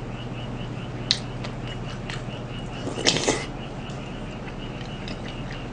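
Frogs calling outside, a faint high pulse about four times a second over a steady low room hum. There is a light click about a second in and a short burst of eating noise about three seconds in.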